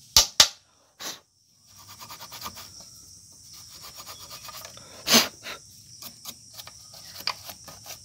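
A weighing scale's metal load cell being cleaned of dust with a brush: soft scratchy rubbing made up of many small ticks. Two sharp clicks come right at the start, and a short breathy burst about five seconds in.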